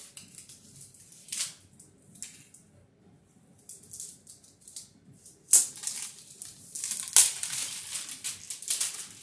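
Clear cellophane wrap crinkling and crackling as it is stripped off a length of PVC plastic wiremold raceway. The crackling is scattered at first and thickens into a steady rustle in the second half, with two sharp snaps of the film.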